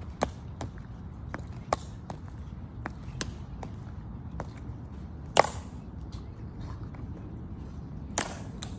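Footsteps of Tomb of the Unknown Soldier guards marching across the stone plaza: their metal-tapped shoes click sharply at a steady pace. Two louder clicks stand out, one about halfway through and one near the end, over a low steady background noise.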